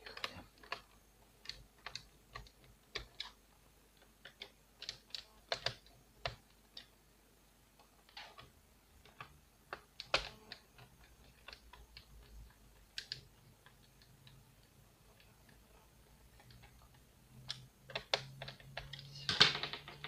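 Scattered small clicks and taps of plastic and a small screwdriver as the bottom cover panels of an Acer Aspire 5520G laptop are fitted and screwed down, with a quicker, louder run of clicks near the end.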